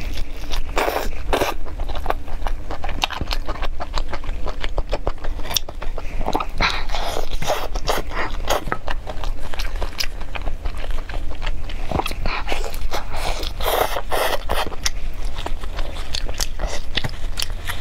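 Close-miked eating sounds: biting, chewing and tearing spiced steamed chicken, with many short wet clicks and crackles.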